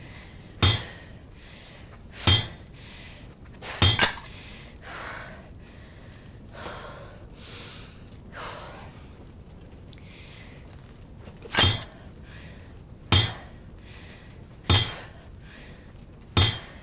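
Hard blows struck with a swung tool, each a sharp thunk with a metallic clink and brief ring: three about a second and a half apart near the start, then after a long pause four more at the same pace. Soft swishing sounds fall between the blows.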